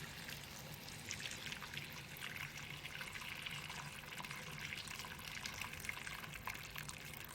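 Water being poured into a hot pan of browned chicken, running and crackling with many fine pops, over a faint low steady hum.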